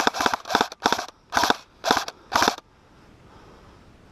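Airsoft rifle firing six short bursts of a few rapid shots each over about two and a half seconds, then stopping.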